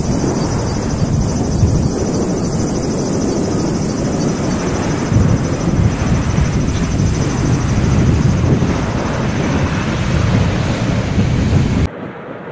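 Landing Dash 8 Q400 twin-turboprop airliner heard as a steady noise, mixed with heavy wind buffeting the microphone. The noise cuts off abruptly near the end and gives way to a quieter recording.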